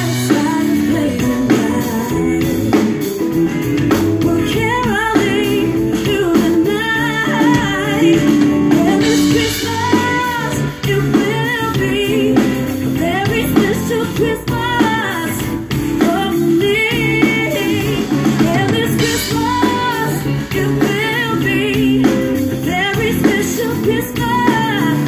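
Live rock band playing a song through a PA: a woman sings lead over a drum kit and electric guitars.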